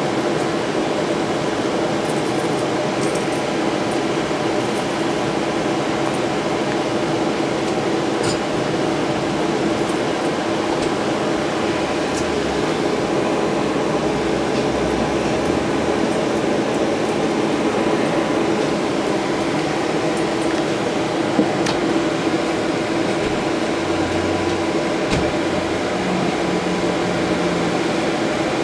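Steady hum with a fixed pitch inside the passenger cabin of a moving AKSM-84300M (BKM 84300M) tram, from its electrical drive and ventilation equipment. A few faint ticks and one sharper click come about three quarters of the way through.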